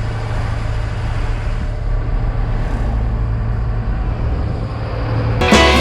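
Steady low rumble and road noise of a car being driven. A guitar song cuts in near the end.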